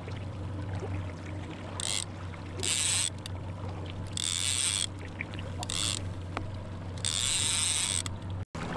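Small fishing boat's motor running at trolling speed with a steady low hum, while the angler fights a fish; five short bursts of reel whirring as line is wound in. The sound cuts out briefly near the end.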